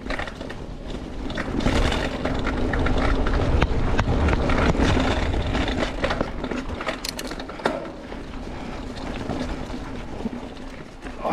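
Mountain bike rolling fast down a dirt trail: wind rushing over the helmet or body camera's microphone, with tyre noise and scattered clicks and rattles from the bike. The rush is loudest in the middle and eases off toward the end.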